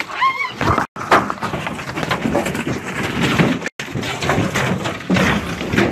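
Loud jumbled commotion on an airboat as an alligator lands among tourists: knocks, thuds and rustling of people scrambling, with a short cry near the start. The sound cuts out completely twice for an instant.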